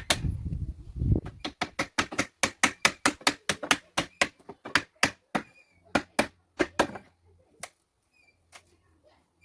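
Hammer striking nails in pallet wood in a rapid, even series of blows, about four a second, stopping about seven seconds in, with one or two single knocks afterwards.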